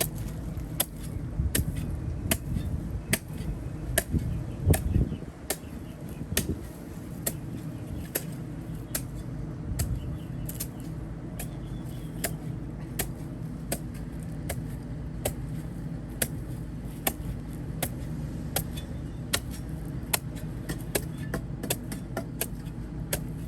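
A shovel blade striking and chopping into the soil again and again, about two sharp strikes a second, as someone digs down for a buried sewer cleanout pipe. A steady low rumble runs underneath.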